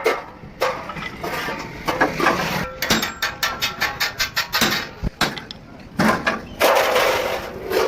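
Irregular knocks and clanks of workshop work on a bus body, some with a short metallic ring, and a stretch of rougher noise near the end.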